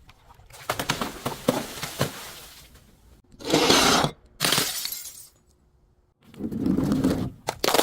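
Glass bottle being broken and crushed: a run of crackling snaps, then two loud shattering crunches a second apart, and a heavier, deeper crunch near the end.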